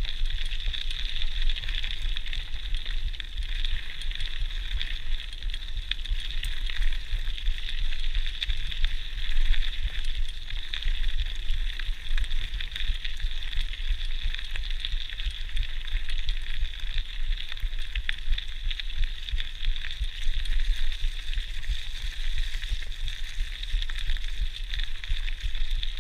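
GT Outpost Trail mountain bike rolling along a gravel track: steady crackle and crunch of tyres over grit and leaves, over a low rumble of wind and frame vibration on a chest-mounted GoPro.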